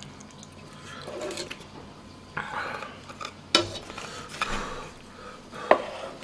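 Eating sounds: chopsticks and dishes clinking against a metal stew pot and plates, with soft rustling and chewing noises. There are two sharp clicks, one about halfway through and a louder one near the end.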